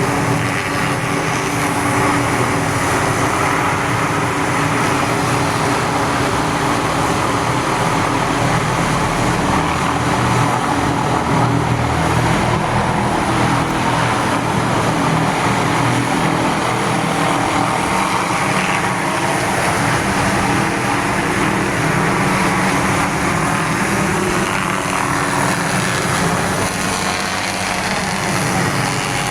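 Hughes 500D helicopter running steadily: turbine whine and rotor noise holding an even level.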